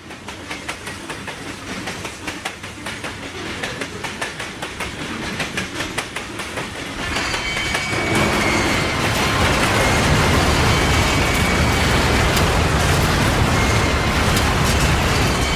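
A train's wheels clacking rhythmically over rail joints, growing louder as it approaches at speed. About seven seconds in, this gives way to a loud, dense rumble with a thin high steady squeal over it.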